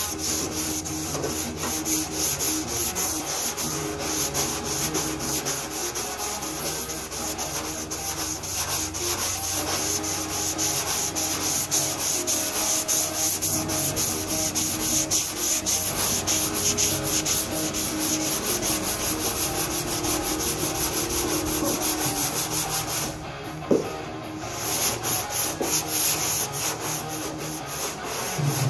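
320-grit sandpaper rubbed by hand in quick, continuous back-and-forth strokes over guide-coated primer on a 1958 Chevy truck body panel: the final sanding that shows up low spots. The strokes stop for about two seconds a little over three-quarters of the way in, with a single click in the gap, then start again.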